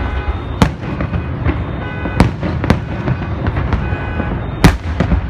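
Aerial firework shells bursting overhead: a series of sharp bangs at uneven intervals, the loudest near the end, over a constant low rumble. Music plays underneath.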